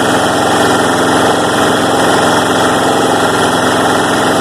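Push mower's small four-stroke engine running steadily and loudly with almost no oil left in its crankcase.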